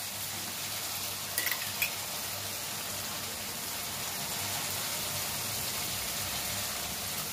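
Yogurt and poppy-cashew masala frying in oil in a pan with a steady sizzle, fried down until the oil separates. Two short light clicks come about a second and a half in.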